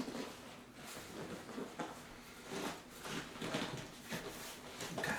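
Irregular rustling and scraping of an upholstery seat cover being pulled and smoothed over seat foam by hand.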